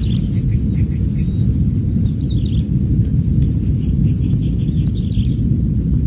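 Low, steady rumble of wind on the microphone, with small birds chirping in short runs of quick notes and a steady high insect drone.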